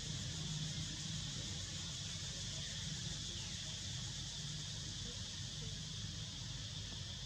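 Steady outdoor ambience: a continuous high insect drone, with a low rumble underneath.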